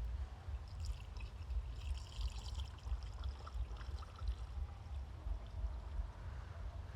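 Windshield washer fluid being poured into a car's washer fluid reservoir, splashing and trickling as it fills, under a steady low rumble.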